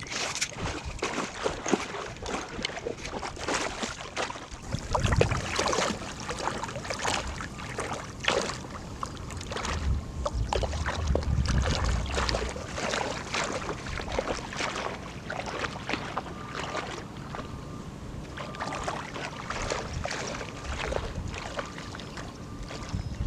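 Water splashing and sloshing in many irregular strokes, as from movement through shallow water.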